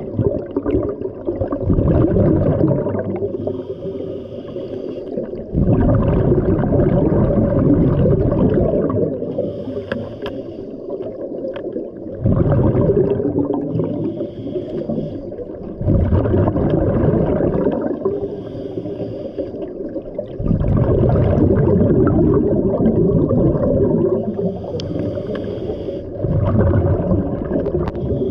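Scuba diver breathing through a regulator underwater: a loud rush of exhaled bubbles about every five seconds, each followed by a quieter inhale with a faint hiss from the regulator.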